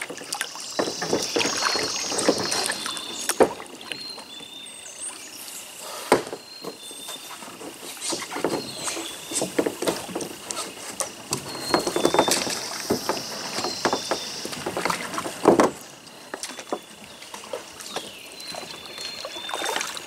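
Kayak paddle strokes in the water: irregular splashing, dripping and occasional knocks, with a loud splash about fifteen seconds in. A steady high tone and short repeated high chirps sound behind it.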